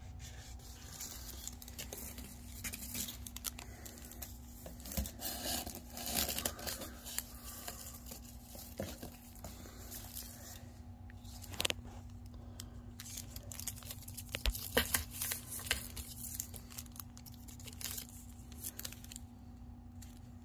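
Irregular scratching and rustling on a cardboard box as a cat paws at it from inside, with scattered sharper scrapes and clicks.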